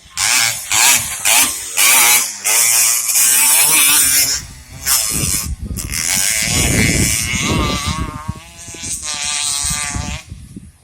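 Racing motorcycle engines revving hard and passing, with a buzzy pitch that wavers up and down, in loud stretches broken by short dips.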